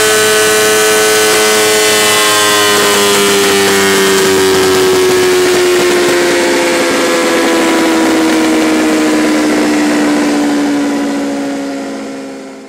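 Honda 600 cc inline-four engine of a Mistral 610 Moto2 racing motorcycle running on a dyno through a LeoVince titanium exhaust, held at high revs with its pitch sliding slowly down. The sound fades out near the end.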